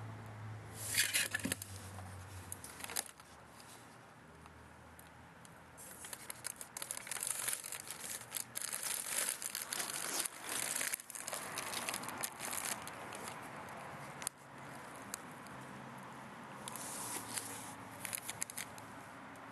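Clear plastic bag crinkling and rustling as it is pulled out and handled, in bursts: briefly about a second in, for several seconds through the middle, and again near the end.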